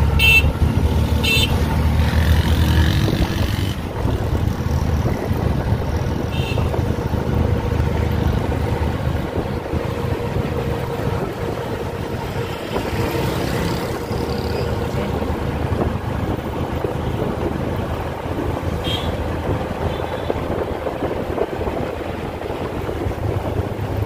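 Busy city street traffic: motor vehicle engines running steadily, with a heavy engine rumble close by for the first few seconds. A few short horn toots come near the start and twice later on.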